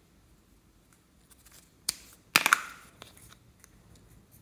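Hard plastic clicking and a loud snap a little over two seconds in as a small clear plastic cup holding toy figurines is handled and opened, followed by light clicks of the figurines against the plastic.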